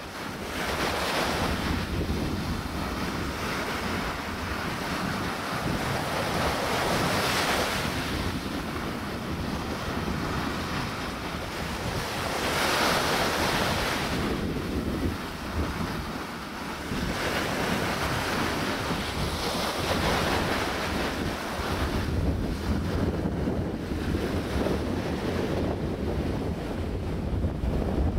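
Small waves breaking and washing up a sandy beach, rising and falling in surges every few seconds, with wind buffeting the microphone.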